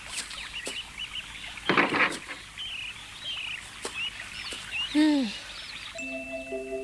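Small birds chirping and twittering, with scattered light taps. About two seconds in comes a short rough creak as a wooden door is pushed open, and near five seconds a short call that falls in pitch. Gentle music with mallet-like notes begins about a second before the end.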